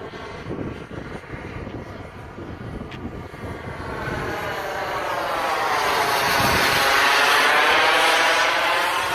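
Saab 37 Viggen jet fighter flying past overhead, its Volvo RM8 turbofan engine noise building from about four seconds in to its loudest near the end, with a sweeping, phasing whoosh as it passes closest.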